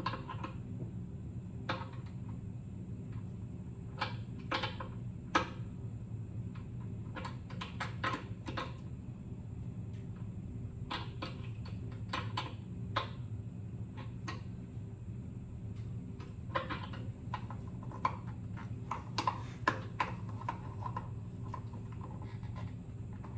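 Scattered metallic clicks and knocks of a wrench tightening a new pressure relief valve into an air compressor's fitting, at irregular intervals over a steady low hum.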